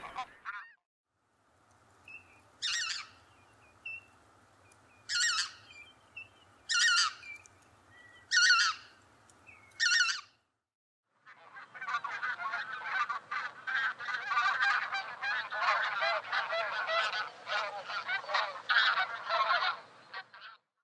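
The snow goose call cuts off at the start. Then a lesser white-fronted goose gives five high, squeaky yelps about a second and a half apart. After a short pause, a flock of bean geese keeps up dense, overlapping honking.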